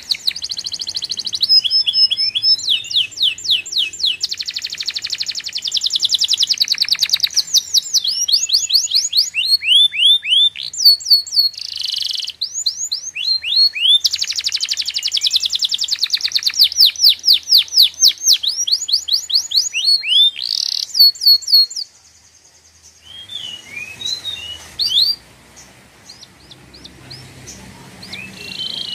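A bird singing loudly: long runs of rapid, repeated high chirps and trills with falling notes. The song stops about 22 seconds in, and only a few scattered calls follow.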